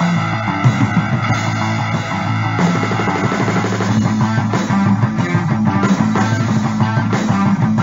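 Background rock music with distorted electric guitar and a steady bass line.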